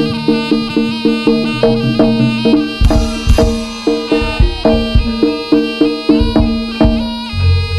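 Live jaranan ensemble playing traditional Javanese music: quick pitched percussion notes repeating about four times a second over a held tone, with heavy drum strokes coming in about three seconds in.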